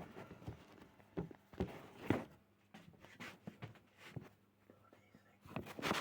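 Scattered light clicks and taps of thin ripped wooden strips and a measuring tool being handled, with a quick cluster of them near the end.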